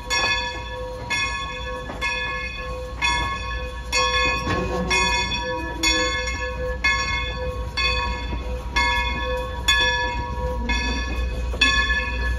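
Locomotive bell ringing steadily, about one strike a second, over a low train rumble.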